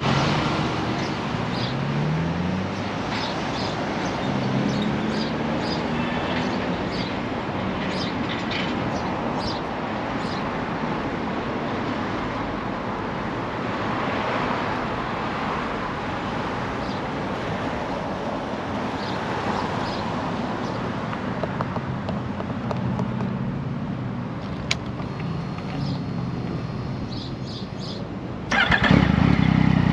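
Street traffic going by, a steady wash of road noise with the engines of passing vehicles rising and falling in pitch. Near the end a 2016 Yamaha XSR900's 847 cc inline-three engine starts with a sudden jump in loudness and runs at a steady idle.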